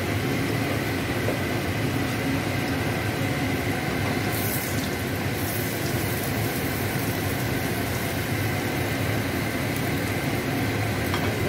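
Choy sum blanching in a stainless-steel pot of simmering water over a gas burner: a steady, even hiss with a faint hum under it.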